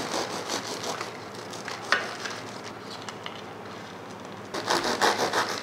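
Knife cutting through the crisp cornflake-coated crust of a fried chicken burger: a run of crunchy crackles, with one sharper click about two seconds in. More crackling near the end as the cut halves are handled.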